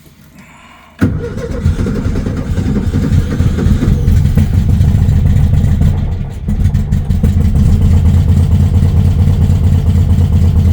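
Classic VW Beetle's air-cooled flat-four engine starting about a second in and then running steadily with an even pulsing beat. The sound dips briefly about six seconds in before running on.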